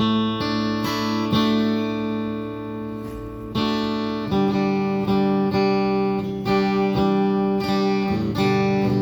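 Squier Telecaster strummed through amplifiers: chords picked and left to ring, restruck every half second or so, moving to a new chord about four seconds in.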